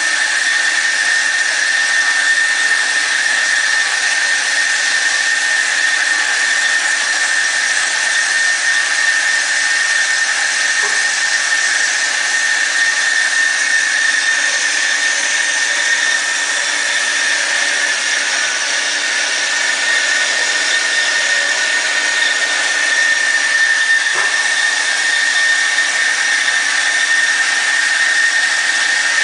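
Industrial band saw machine running, a steady high whine over a hiss that goes on without a break.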